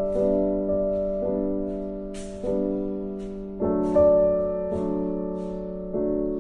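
Background music: slow, gentle piano chords, each struck and left to fade.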